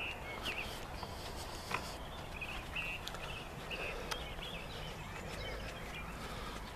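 Birds calling: short, repeated chirps over a quiet outdoor hush, with a few faint clicks.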